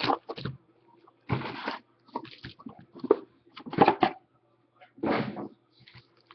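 Crinkling and tearing of trading-card packaging, a sealed card box and its wrapped packs being ripped open, in about five short bursts.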